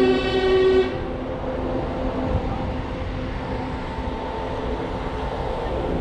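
Touring coaches' air horns honking: a loud multi-tone horn blast cuts off about a second in, and fainter steady horn tones carry on behind it.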